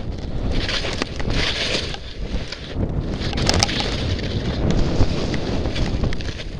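Wind buffeting the microphone during a fast descent through powder snow, with a rising hiss of snow spray on the turns, about a second in and again near the middle.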